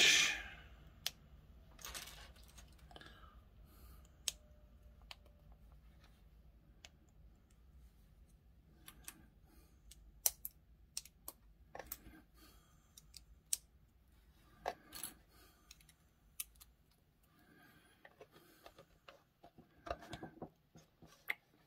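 Plastic LEGO bricks clicking and clattering on a wooden table as pieces are picked from a pile and pressed onto a baseplate: scattered sharp clicks with short gaps between them.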